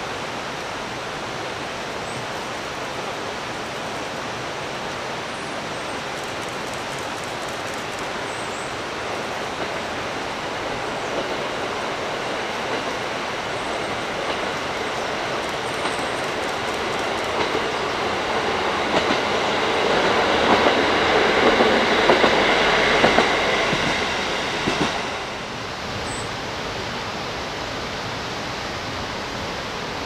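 A diesel train approaching and passing on the rails, its rumble and wheel clicks over the rail joints swelling to a peak about twenty seconds in. The train sound cuts off abruptly about twenty-five seconds in, leaving a steady rushing noise.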